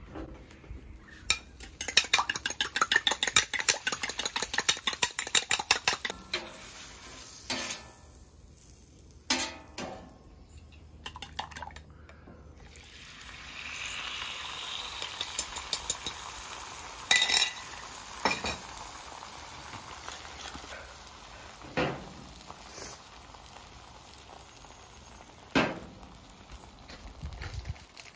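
A fork whisking eggs in a bowl, fast clicking strokes against the bowl's side. About halfway through, the beaten eggs are scraped out onto the hot flat-top griddle and sizzle, followed by a few separate clinks of utensils.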